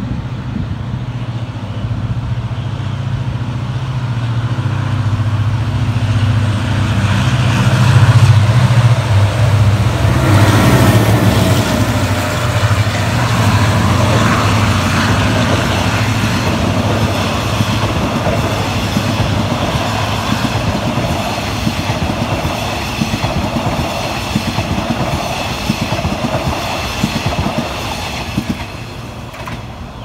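A diesel-hauled passenger express train passes close by. The locomotive's engine hum builds and is loudest about ten seconds in. The coaches then roll past with a steady rumble and rapid wheel clicking on the rails, fading toward the end.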